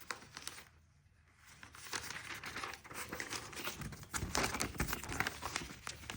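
Paper rustling and crinkling as the pages of an instruction booklet are handled and turned: a brief lull, then a stretch of dense crackling that grows louder toward the end.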